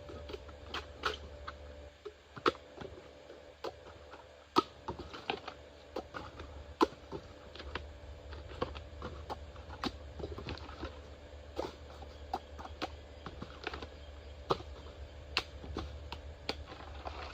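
Bamboo being chopped with a blade: irregular sharp knocks and cracks, several a second, with a few louder strokes standing out, over a faint steady hum.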